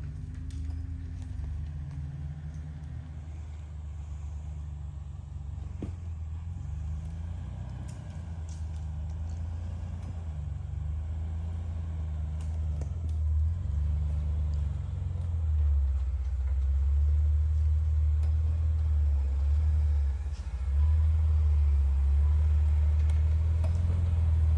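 Jeep engine working at low revs as it crawls up a rock ledge, its low drone wavering gently and growing louder, with a brief dip near the end.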